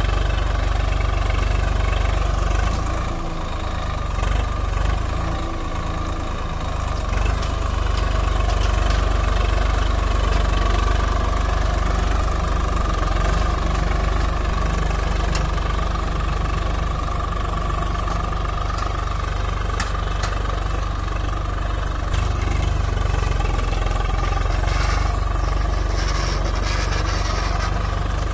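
Swaraj 744 FE tractor's three-cylinder diesel engine running steadily under load while pulling a nine-tine cultivator through the soil.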